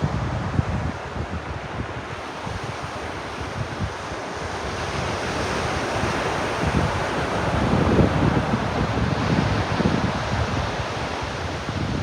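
Ocean waves breaking and washing up the beach as a steady rush, with wind buffeting the microphone in low rumbles. The surf swells louder from about five seconds in and is loudest around eight seconds, then eases.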